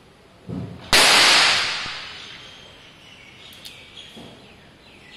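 A single shot from a .32 Alfa Proj revolver fired double action, a loud sharp crack about a second in that rings out over the following second, just after a softer low thump. A few faint light clicks follow a few seconds later.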